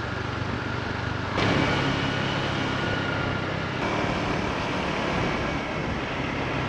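Motor scooter engine running steadily while riding, with wind noise on the microphone. The sound changes abruptly about a second and a half in and again near four seconds.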